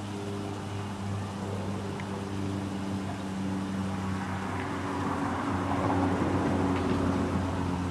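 A steady low mechanical hum, as of an engine or motor running, its pitch shifting slightly about two seconds in, with a louder noisy swell about five to seven seconds in.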